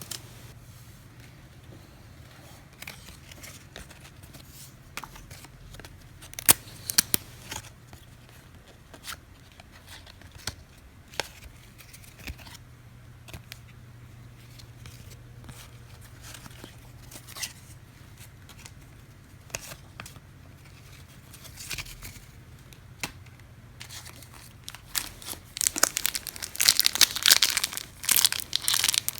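Trading cards being handled and flipped through, with scattered sharp clicks and slides, then a card pack wrapper being torn open and crinkled for the last few seconds.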